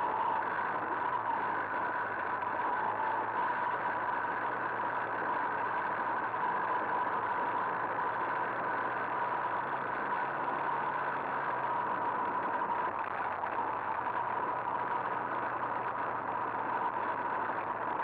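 Two-stroke moped engine running at a steady speed on the move, its note holding constant with no change in revs.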